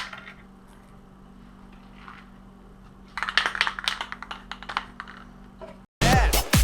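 A rapid run of light clicks and taps lasting about two seconds over a faint steady hum, then electronic dance music cuts in abruptly near the end.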